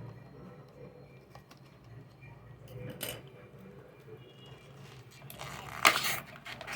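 Plastic packaging being handled and opened: soft rustling and small clicks, with a louder burst of crinkling about five to six seconds in.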